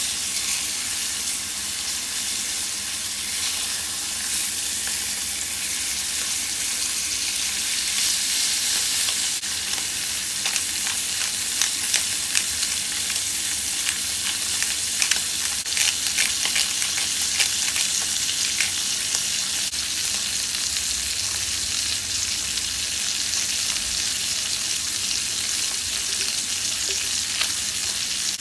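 Lamb chops frying in fat in a cast-iron skillet: a steady high sizzle, with a stretch of sharper pops and crackles in the middle.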